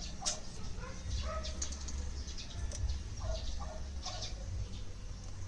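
Aluminum drink can being cut open with a utility knife and turned in the hands: scattered scraping and crinkling clicks of the thin metal, over a low steady rumble.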